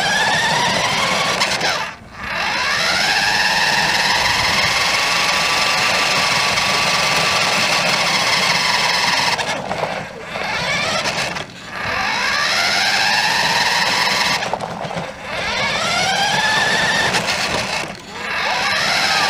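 Radio Shack Dagger RC toy truck's electric motor and gears whining loudly as it drives. The whine drops out briefly about five times and climbs in pitch each time the truck speeds up again.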